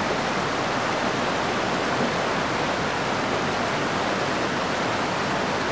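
Steady rushing of a stream of water, an even noise with no break or change.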